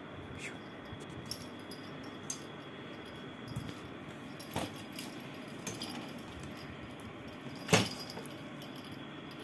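A cat at play under a metal-framed folding stool: light metallic jingling from a small bell on its collar, with scattered clicks and knocks. The loudest knock comes about three-quarters of the way through, as the cat lunges against the stool's legs.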